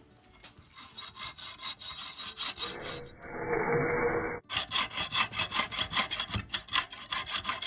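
Hacksaw cutting through a grade 5 steel bolt held in a bench vise, its blade lightly oiled. Quick, even back-and-forth strokes start faint and get louder about four and a half seconds in.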